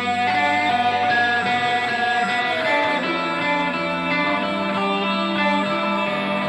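Instrumental music with plucked string notes over a steady low drone. A long held tone glides down in pitch about two and a half seconds in.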